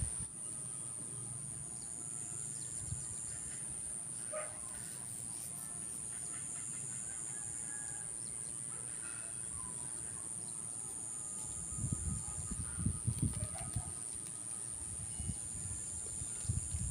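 Scattered faint bird calls, including a short rising call about four seconds in, over a steady high-pitched whine. Low rumbling bumps come around twelve to fourteen seconds in and again near the end.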